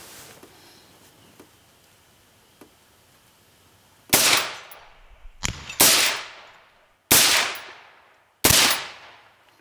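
Four gunshots, fired one at a time about a second and a half apart in the second half, each trailing off in a short echo. No explosion follows any of them: the Tannerite packed in the toilet target fails to detonate, which the shooter puts down to old, caked Tannerite.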